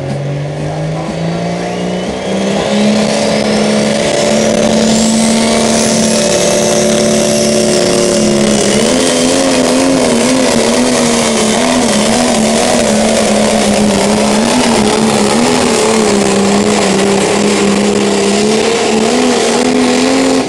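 Pro Stock pulling tractor's turbocharged diesel engine at full throttle dragging the sled. The engine note climbs for the first few seconds alongside a rising turbo whistle, then holds high and wavers up and down from about nine seconds in.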